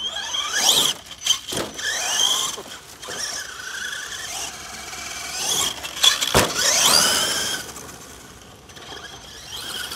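RC4WD Carbon Assault 1/10 electric monster truck driving on dirt: its brushless motor and gears whine, the pitch sweeping up sharply as the throttle is pushed about half a second in and again about six seconds in, the second time loudest, with shorter whines between and easing off near the end.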